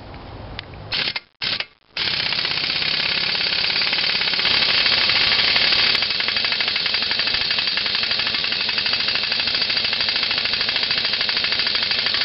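Impact wrench hammering on the forcing bolt of a homemade puller braced against a flywheel hub, trying to draw out a stuck gib key. Two short blips about a second in, then steady rapid hammering from about two seconds in, which does not budge the key.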